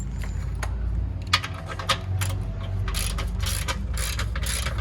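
Hand ratchet wrench clicking in short strokes, a run of sharp uneven clicks from about a second in, over a steady low hum.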